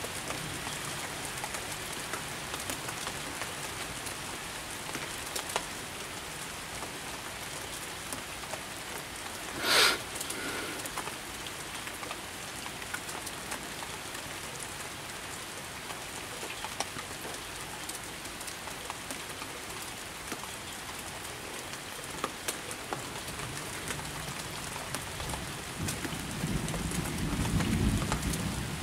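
Steady rain falling in a thunderstorm, with a low rumble of thunder swelling near the end. About ten seconds in, a short, loud noise stands out above the rain.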